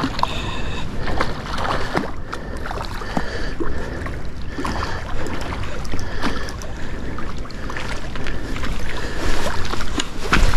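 Wind buffeting the microphone as a steady low rumble, with scattered light clicks and the splashing of a hooked sea bass being drawn through shallow water onto pebbles.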